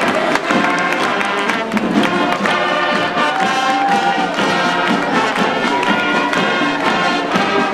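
High school marching band playing, with brass carrying the tune over drums.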